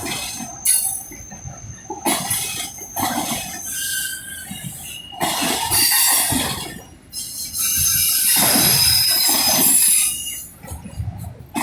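Norfolk Southern freight train rolling past, its wheels rumbling and clattering over the rails in uneven surges, with thin, steady high-pitched wheel squeals coming and going.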